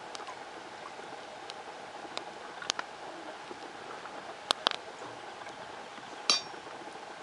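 Wood fire burning with a steady hiss and scattered sharp pops and crackles. The loudest is a short crackling burst about six seconds in.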